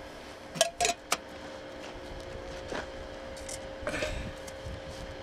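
A few light clinks and knocks of a metal can and glass jars being handled, the sharpest in quick succession about a second in and softer ones later, over a faint steady hum.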